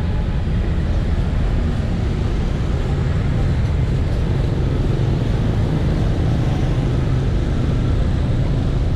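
Street traffic noise: a steady wash of passing vehicles, heavy in the low rumble, with no single event standing out.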